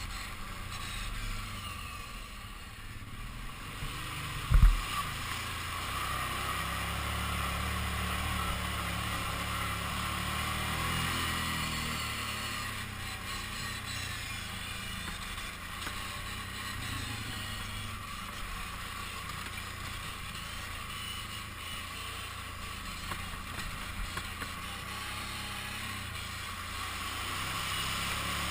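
Kawasaki Brute Force 750 ATV's V-twin engine running steadily while riding a trail, with a broad rushing noise over the top. A single loud, low thump about five seconds in.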